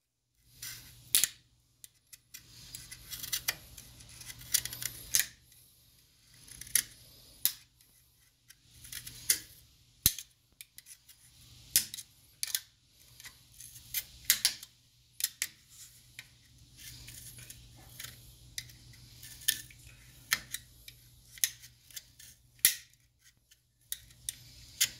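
Utility knife blade cutting and scraping small plastic vanes flush on a black plastic active grille shutter motor case: a run of irregular sharp clicks and short scrapes.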